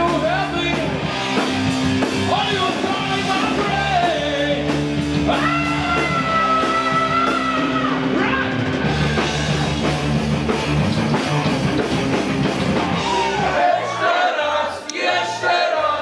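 Hard rock band playing live, with singing over guitar, bass and drums. About fourteen seconds in the full band drops back to short stabs and the crowd's voices come through.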